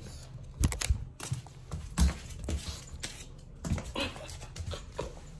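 Scuffling and sharp knocks on a phone's microphone as a small shaggy dog is handled and played with, with a short whine from the dog about four seconds in.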